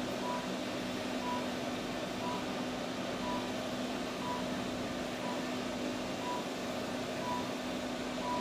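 Therapeutic warm-laser unit giving a short, even beep once a second while it is emitting, over a steady low hum.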